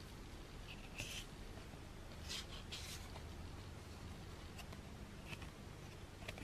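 Stiff photo cards sliding and rubbing against each other as a stack is leafed through by hand: three short scraping swishes in the first half, then a few faint ticks.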